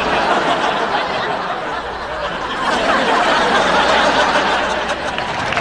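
Studio audience laughing: a sustained laugh of many voices that eases slightly and then swells again about halfway through.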